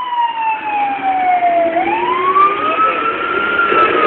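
Fire engine siren sounding a slow wail. Its pitch falls for almost two seconds, climbs back up over the next two, and begins to fall again near the end. It is heard from inside the moving truck's cab.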